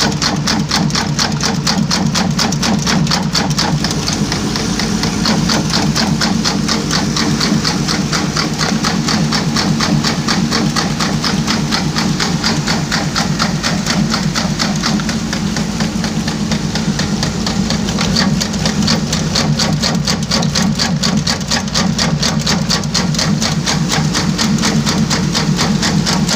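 A machine running steadily with a rapid, even clatter over a low hum.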